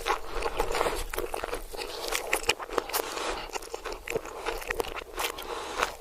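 Close-miked chewing and biting of crunchy food, a dense run of irregular crunches and crackles, played backwards.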